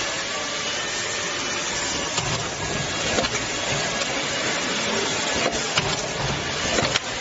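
Automatic rotary-table cup-sealing machine running: a steady mechanical hum and hiss with a handful of sharp clicks scattered through it.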